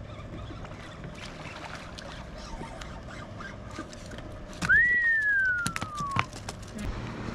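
A single loud whistled note that swoops up quickly and then slides slowly down for about a second and a half before stopping abruptly, with a few sharp clicks near its end.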